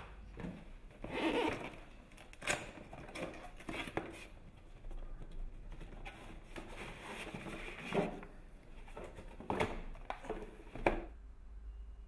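Cardboard box being opened and handled, rustling and scraping, as a reel of electric floor-heating cable is taken out, with a few sharp knocks and clicks.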